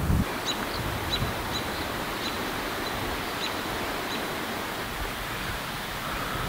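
Steady, even hiss of stormy-weather ambience, with faint short high chirps at irregular intervals through the first four seconds or so.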